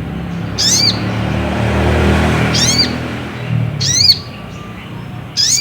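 Little spiderhunter (sogon) calls: four short, sharp, arching call notes spaced about a second and a half apart, over a steady background hum.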